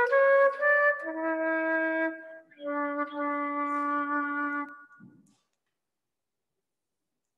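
A slow solo melody on a wind instrument, one note at a time. The last note is held for about two seconds and fades out about five seconds in.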